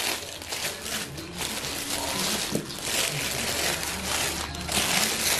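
Thin white paper wrapping crinkling and rustling as hands unwrap it, in uneven bursts of crackling with brief pauses.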